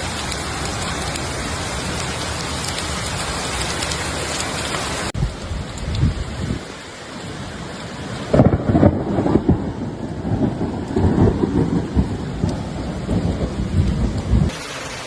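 Heavy rain in a downpour: a dense, steady hiss for about five seconds. After a cut comes a stretch of deep, irregular rumbling in loud gusts, then it breaks off near the end.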